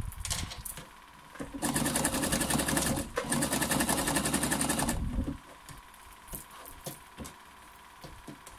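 Electric domestic sewing machine running, stitching a long zigzag through rolled fabric strips in two bursts of about a second and a half each, with a brief pause between. It then stops, and soft clicks and rustles of the fabric being handled follow.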